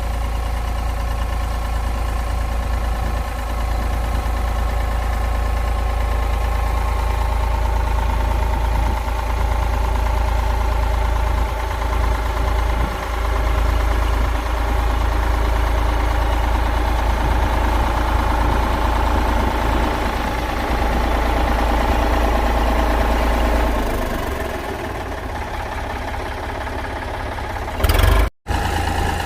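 Classic Ford tractor engine running steadily; its deep low drone drops away about four-fifths of the way through, and the sound breaks off sharply for a moment just before the end.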